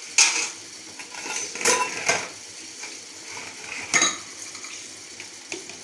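Washed stainless-steel dishes and utensils clattering as they are picked up and set down in a stack: a few separate clanks, the one near four seconds ringing briefly.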